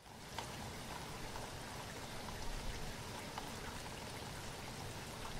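Faint, steady hiss of moving water, with a few light ticks scattered through it.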